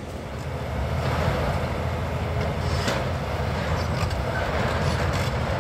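Heavy diesel demolition machinery running steadily, with scattered knocks and crackles on top.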